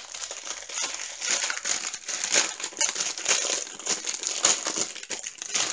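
Clear plastic packets of diamond painting drills crinkling as they are picked up and handled, with irregular crackles throughout.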